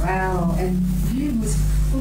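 A woman's voice through a microphone and PA, drawing out one sung-like syllable for under a second, then a short quieter sound about a second in. A steady low electrical hum runs underneath.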